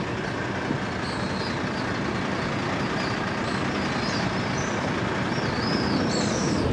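Steady outdoor background rush, with a few faint high chirps about a second in, around four seconds in and near the end.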